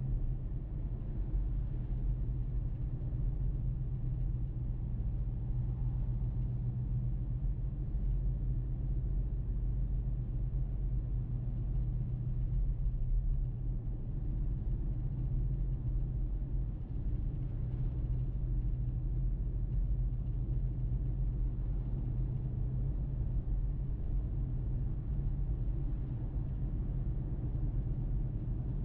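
A car driving at a steady speed: an even, low rumble of road and engine noise with no sudden changes.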